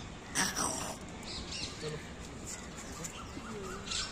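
Birds calling in the open: small birds chirping over and over, with one loud harsh call about half a second in.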